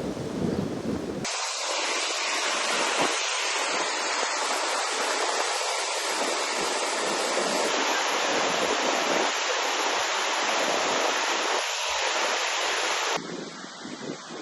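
Wind rumbling on the microphone, then, after an abrupt cut about a second in, a steady loud rush of water that stops suddenly near the end.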